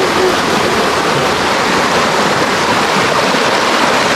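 Shallow river rushing over rocks: a loud, steady wash of flowing water.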